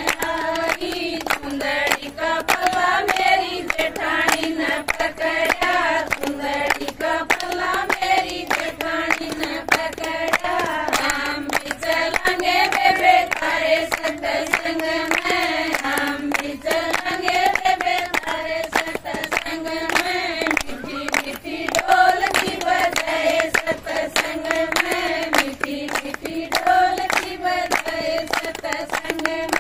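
Group of women singing a Haryanvi folk song together in unison, with steady rhythmic hand clapping keeping the beat.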